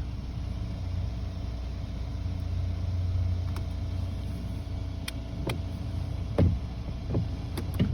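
Mercedes S550's V8 engine idling steadily, with a few short knocks and sweeps from the running windshield wipers in the middle and later part.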